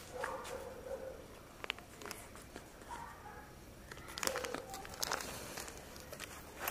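Faint rustling and crinkling of a paper receipt being handled and folded, a few short rustles here and there.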